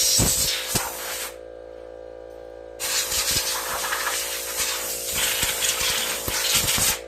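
Compressed air hissing in two long blasts, blowing mouse-nest debris out of a Wheel Horse tractor engine's cooling area under the shroud. The first blast stops about a second in; the second starts near three seconds and runs almost to the end, over a steady hum.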